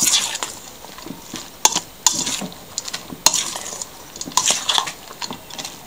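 A hand kneading and squishing moist crumbled matzo in egg batter in a stainless steel bowl, a wet rustling with several sharp clicks of the steel bowl a second or more apart.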